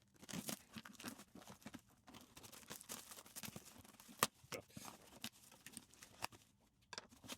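Faint rustling, crinkling and tearing of packaging as a parcel is opened by hand, with many small irregular clicks and a sharper click about four seconds in.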